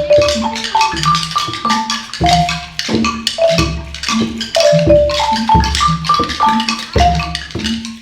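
Upbeat music with a mallet-percussion melody of short ringing notes over wood-block clicks and a steady low drum beat.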